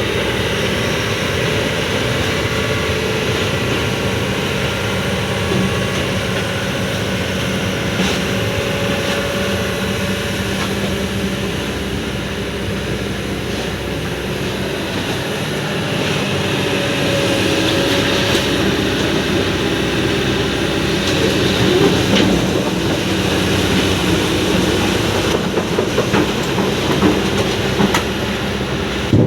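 Kobelco SK200 hydraulic excavator running steadily at work, with a few sharp knocks near the end.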